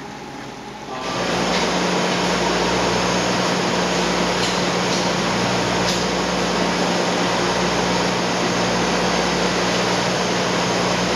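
Pieralisi decanter centrifuge in an olive oil mill running with a loud, steady mechanical hum and a low drone. The hum comes in suddenly about a second in, after a quieter first second.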